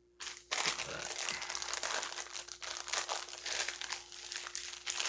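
Crinkling of a clear plastic bag as a Funko Soda vinyl figure is pulled out of its can and handled. It starts about half a second in and goes on as a dense, irregular crackle.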